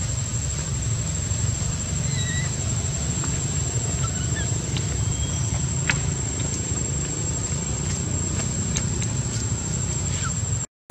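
Outdoor ambience: a steady low rumble, like wind on the microphone, under a constant thin high-pitched tone. A few short, faint chirps and light clicks sound over it, and the sound cuts out for a moment near the end.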